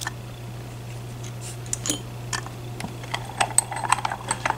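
Small metallic clicks and taps from a Medeco lock cylinder and its pick tools being handled in a bench vise, coming faster and louder over the last second or so.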